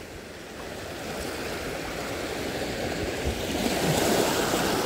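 Small sea waves washing onto the shore, swelling to their loudest about four seconds in.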